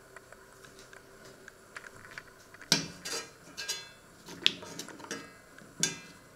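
Metal knife blade knocking and scraping against a black steel frying pan while it pushes a block of butter among halved radishes: several sharp metallic clinks with a short ring, starting a little under halfway in.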